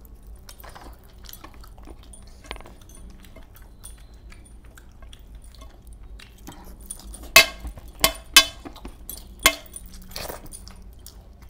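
Close-up eating by hand: soft chewing and small mouth clicks, then four sharp, loud smacks between about seven and nine and a half seconds in.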